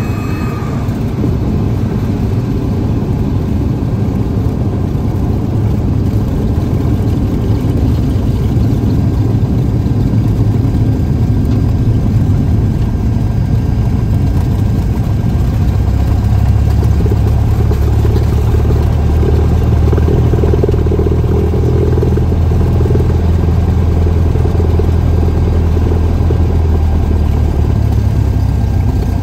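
Cessna 172's piston engine running at low taxi power, heard from inside the cockpit as the aircraft taxis, propeller turning. The steady engine note grows a little louder and deeper from about halfway through.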